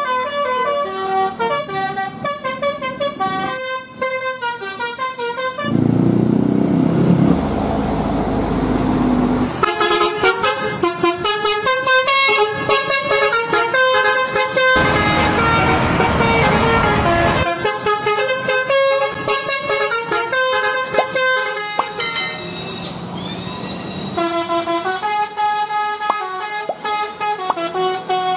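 Tour bus 'basuri' musical horn playing fast, stepping telolet melodies, several notes a second, in runs of several seconds. Twice the tunes break off for a few seconds of loud noisy rushing.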